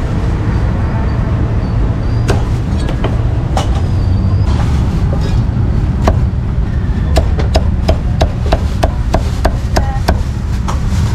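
Heavy meat cleaver chopping roast pork belly on a thick wooden chopping block. A few scattered chops come first, then a steady run of about three chops a second in the second half.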